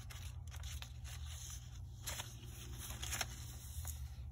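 Paper pages and card inserts of a handmade junk journal rustling and scraping as a fold-out map is closed and a page is turned, with several crisp rustles over a steady low hum.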